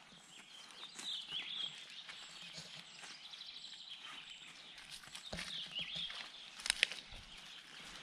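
Forest birds singing and calling, one repeating a short high note about twice a second, with a few sharp close clicks and rustles about five seconds in and again, loudest, near seven seconds.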